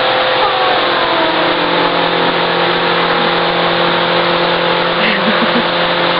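A running motor gives a steady hum with a constant hiss. A faint tone glides down during the first couple of seconds.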